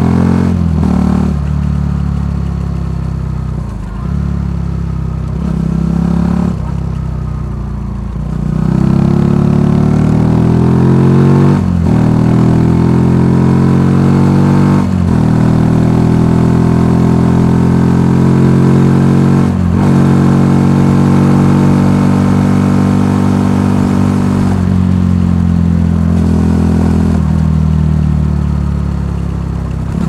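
Benelli TNT 125's single-cylinder four-stroke engine running through its stock exhaust while riding. The pitch climbs in each gear and drops sharply at each of several gear changes, then the engine eases off near the end.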